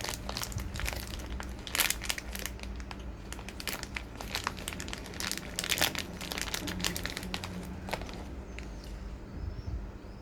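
Plastic food packaging crinkling in irregular bursts as it is handled and opened.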